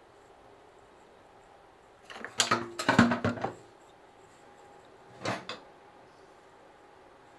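Metal offset spatula clattering and scraping against a metal cake pan: a burst of knocks and scrapes about two seconds in, then two short knocks about five seconds in.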